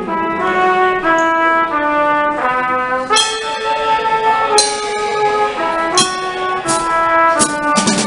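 Trumpet playing a melody line over a drum kit, a run of short notes stepping up and down, with cymbals struck several times from about three seconds in.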